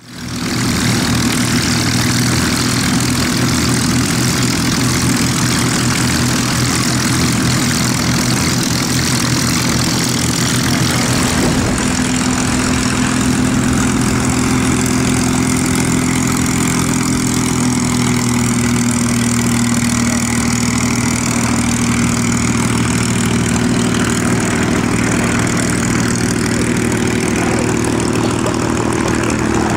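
North American P-51D Mustang's Packard Merlin V-12 engine running steadily at idle, propeller turning, as the fighter taxis on the ramp.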